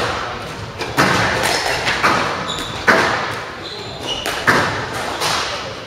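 Squash rally: sharp smacks of racket on ball and ball off the court walls, about one a second, each echoing. Between the hits come short squeaks of shoes on the wooden floor.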